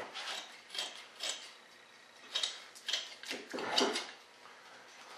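Short rustling, scraping strokes of fiberglass cloth being handled and worked over a mold, about seven in quick succession, the loudest a little before the end.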